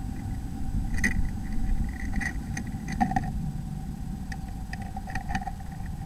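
Blue tit moving about inside a wooden nest box: scattered scratches and taps on the wood, loudest about one, two and three seconds in and again around five seconds, over a steady low rumble and a faint steady tone.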